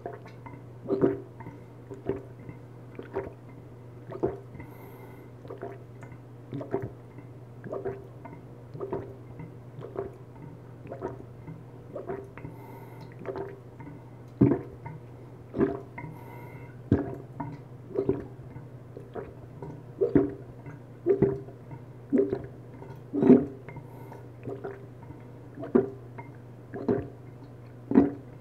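A person gulping down orange juice in one long chug, each swallow a short wet gulp, about one a second, picked up close by a clip-on microphone. A steady low hum runs underneath.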